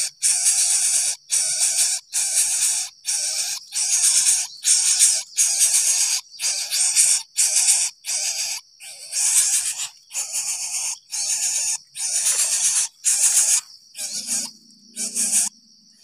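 Greater coucal nestling hissing in rapid, rasping bursts, about one and a half a second. A steady high insect trill comes in near the end.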